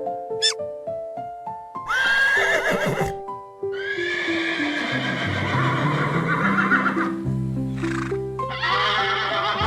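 Horse whinnying three times over background music: a short whinny about two seconds in, a long quavering one, then another starting near the end.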